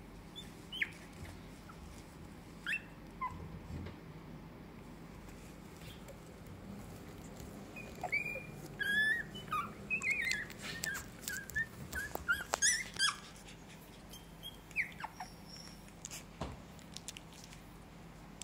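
17-day-old Shiba Inu puppies whimpering: short, high-pitched squeaks that fall in pitch. A few come singly early on, then a rapid run of them from about eight to thirteen seconds in, and a couple more after that.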